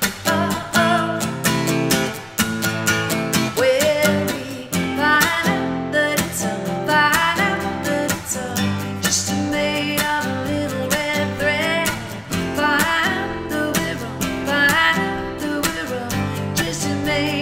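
Acoustic guitar strummed in a steady rhythm with a woman singing over it: a solo acoustic song performance.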